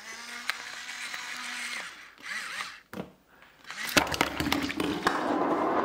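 Hand-twisted seasoning grinder mill grinding over a bowl: a grainy, scraping grind for about two seconds, a brief burst, then a louder spell of grinding with rapid clicks from about four seconds in.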